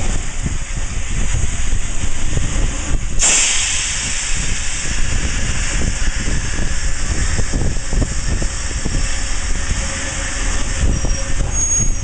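Cab of ATSF 3751, a 4-8-4 steam locomotive: steady hissing steam over a low rumble. After a brief break about three seconds in, the hiss comes back louder and brighter.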